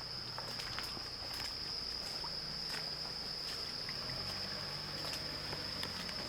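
A steady, high-pitched chorus of crickets, unbroken throughout, with a few faint scattered clicks under it.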